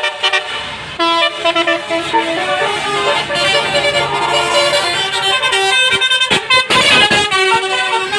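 Bus basuri horn, the multi-tone electric 'telolet' horn, playing a melody of sustained notes that step from pitch to pitch. A short noisy burst comes about six to seven seconds in.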